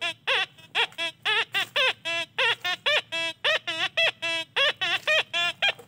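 Metal detector sounding a rapid series of short, warbling tones, about four a second, some rising and falling in pitch and some flat, as its coil is held over a target in a dug hole.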